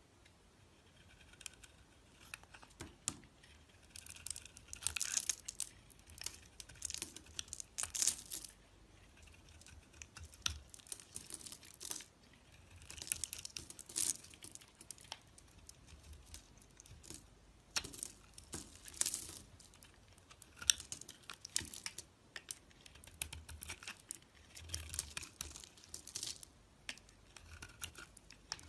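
A knife cutting and scraping into a bar of soap, making crackling, tearing strokes that come in bursts of a few seconds with short pauses between.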